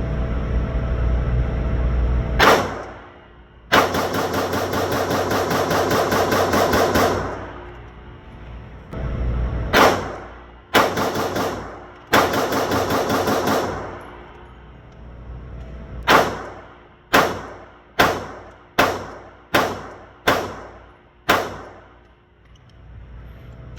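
Gunfire at a shooting range: a single shot, then a long rapid-fire burst of about three and a half seconds, two shorter bursts, and then seven single shots fired about a second apart.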